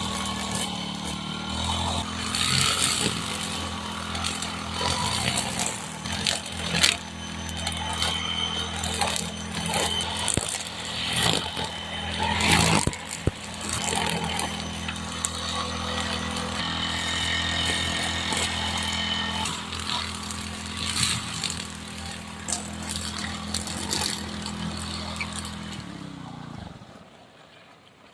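A small engine running steadily, with repeated knocks and clicks over it, then slowing and cutting out near the end.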